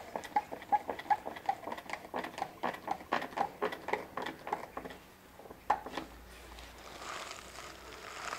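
One-handed trigger bar clamps being ratcheted tight on a wooden plank: a quick, even run of clicks, about three a second, for roughly five seconds, then two more clicks a little later. Cloth rustles against the microphone near the end.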